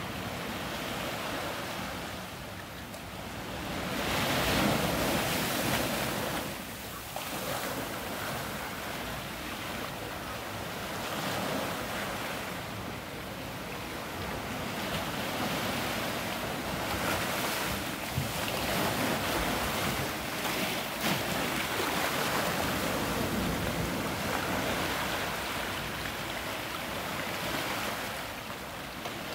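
Gentle surf breaking and washing in over black volcanic rocks and sand at the shoreline, a steady wash of water that swells and eases as each wave comes in and drains back.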